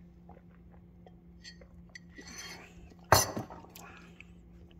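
Small clinks from a ceramic coffee mug with a metal spoon in it being handled. About three seconds in comes one loud knock as the mug is set down on a granite countertop.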